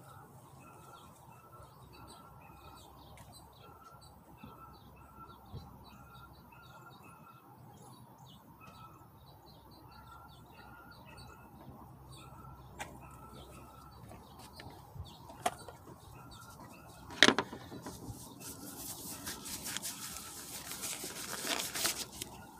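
A small bird chirping over and over in short, evenly spaced notes. About seventeen seconds in comes one sharp knock, the loudest sound, followed by several seconds of rustling and crinkling as the cardboard box of a new oil filter is handled.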